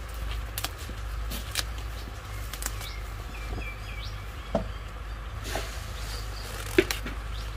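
Scattered sharp clicks and snaps over a steady low rumble, with a few faint bird chirps about three seconds in; the loudest click comes near the end.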